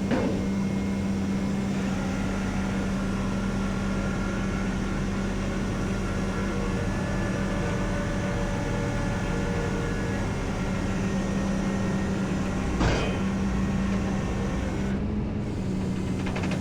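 Flatbed tow truck running steadily with its hydraulics working as a vehicle is let down off the deck, a steady drone with a low hum, and one short knock about 13 seconds in.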